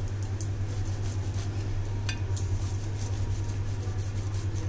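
A lemon half coated in spice salt is rubbed over a fire-roasted corn cob, giving short scratchy ticks and light clinks of a fork against a plate. A steady low hum runs underneath and is the loudest sound.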